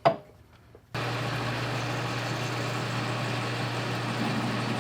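Metal lathe running at a steady spindle speed, a constant motor hum with even mechanical noise starting abruptly about a second in. The speed, just dropped one step, is still too fast for the parting cut.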